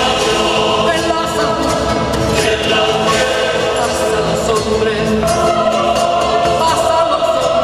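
Choral music from a film soundtrack: a choir singing long, held notes over the closing credits.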